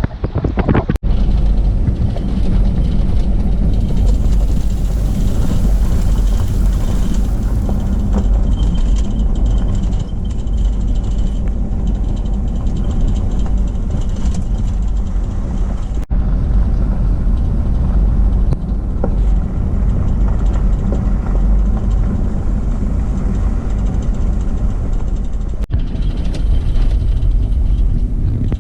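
Steady low rumble of a car driving on a road: engine and tyre noise, with three brief dropouts where the recording cuts.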